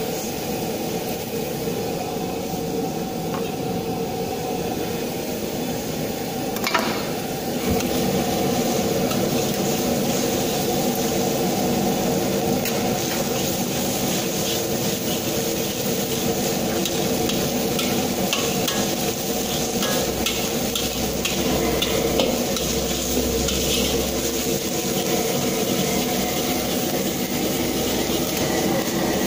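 Metal spatula stirring and scraping salted egg yolk in a wok over a gas flame, the mixture sizzling. A sharp knock about seven seconds in, then the stirring gets louder, with many quick clicks of the spatula against the wok over a steady hum.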